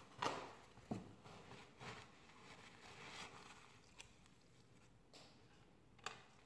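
Scattered soft rustles and light knocks of paper towel wiping up spilled, foamed-over soda on a counter, with a sharp click near the end.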